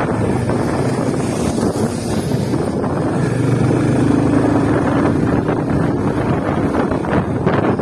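Yamaha FZ 250 single-cylinder motorcycle engine running steadily while cruising, with wind buffeting the helmet or body-mounted microphone.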